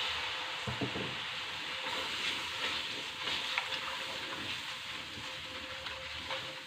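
Besan roasted in ghee sizzling and hissing in a kadhai as milk is worked in a few spoonfuls at a time, with scattered light scrapes and clicks of the stirring spoon.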